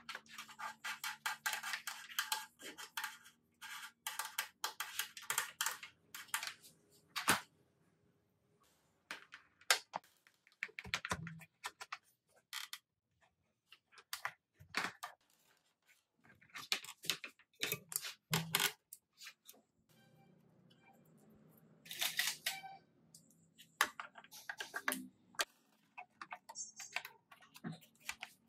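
Handling noise as electrical cables and wires are pulled and shifted against a sheet-metal stabilizer case: a dense run of small rattling clicks at first, then scattered taps and knocks.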